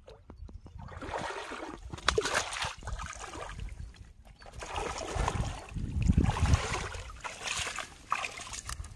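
Legs wading through thigh-deep lake water, sloshing and splashing in several bursts of strides, with a short pause about halfway.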